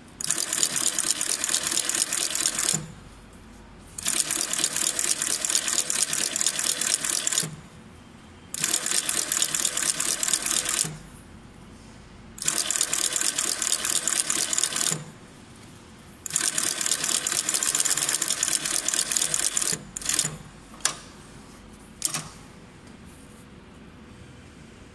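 GR-781 twin-needle moccasin upper sewing machine stitching leather in five runs of about three seconds each, with short pauses between. A few brief spurts follow, then it stops for the last few seconds.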